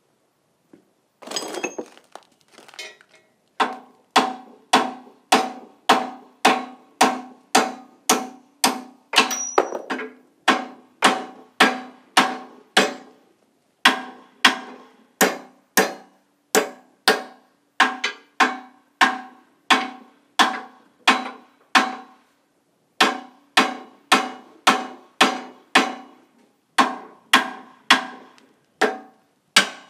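Hammer blows on the steel frame of a three-bottom plow, about two a second, each one ringing with a metallic tone. A short clatter comes about a second and a half in before the hammering starts, and the blows pause briefly a few times.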